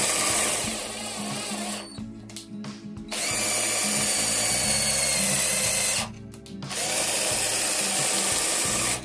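Cordless drill spinning the threaded rod of a router table's rise-and-fall lift, driving the router along the rod. It runs in three steady bursts with short pauses between, and the lift works really well.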